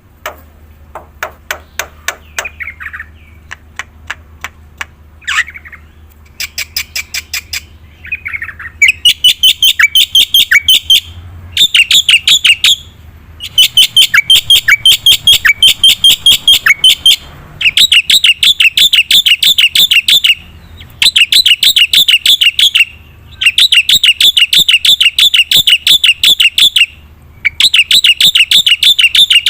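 Black-winged myna (jalak putih) in full, vigorous song. It opens with a run of fast dry clicks and a few short calls, then from about eight seconds in it breaks into loud bouts of rapid repeated chattering notes, each a few seconds long, with short breaks between them.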